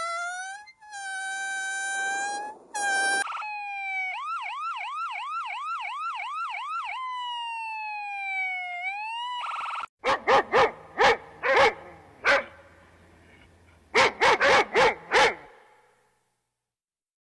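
A siren-like tone is held, then warbles quickly about three times a second, then slides down and back up. Then a dog barks sharply in two bursts of about five barks each.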